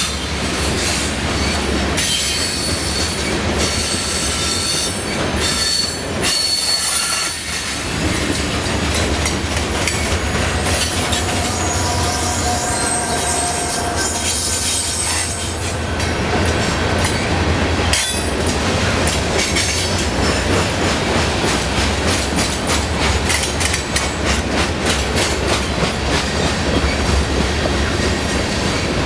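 Freight train of covered hopper cars rolling past close by: steady wheel and rail noise, with wheels squealing in thin high tones that come and go and rapid rail clicks, heaviest in the second half. Partway through, a diesel locomotive placed mid-train passes by.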